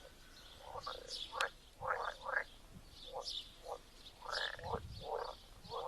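Chorus of pond frogs croaking, many short overlapping calls repeating irregularly, with higher short chirping calls above them.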